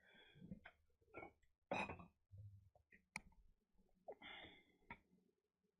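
Faint, scattered short noises with a sharp click about three seconds in, in a quiet small room.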